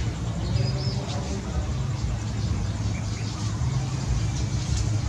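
Steady low hum like a motor running nearby, with a brief high chirp about a second in.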